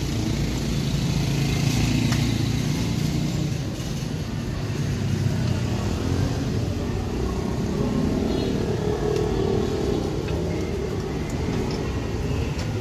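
Road traffic running past, a steady noise of motor vehicles with its weight in the low range.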